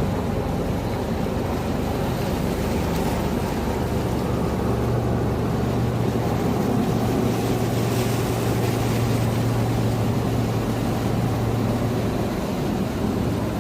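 Steady rushing noise of sea waves and wind, with a low steady hum that swells up about four seconds in and fades near the end.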